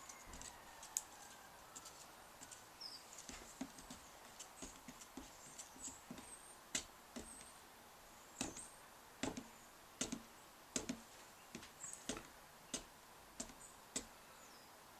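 Screwdriver stirring cold, old paint with thinners in a metal tin, knocking against the tin: faint, sharp clicks, scattered at first and then coming about once a second in the second half.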